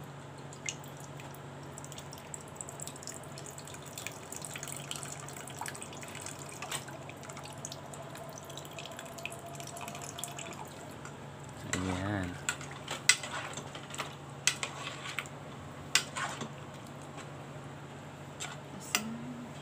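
Milk poured from a can in a thin stream into a pot of coconut-milk stew, trickling, over a steady low hum. Towards the end come a few sharp clicks as a metal spoon knocks against the pot while stirring.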